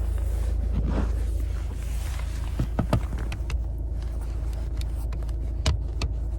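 Steady low rumble of a car heard from inside the cabin, with a few short clicks or knocks around the middle and again near the end.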